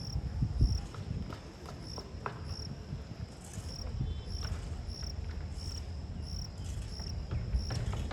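Cricket chirping steadily, a high pulsed chirp about twice a second, over a low rumble with a few faint knocks.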